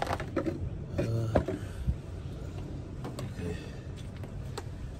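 A few scattered light clicks and knocks of tools and small parts being handled and moved about.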